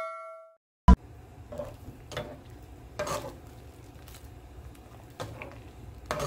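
Fusilli pasta boiling in a pot of water, stirred with a spoon that knocks and scrapes against the pot about five times. The tail of a chime rings out at the start, and a click comes about a second in.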